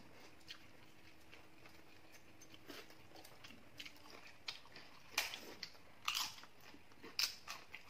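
A person biting and chewing crisp papad (papadum), with a few sharp crunches in the second half, the clearest about five, six and seven seconds in, between softer mouth sounds.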